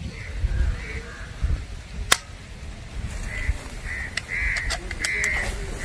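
One sharp metallic click from a Blanca pull-back air pistol about two seconds in, with a brief ring, and a few lighter clicks near the end as the pistol is worked. A bird calls repeatedly in short caws.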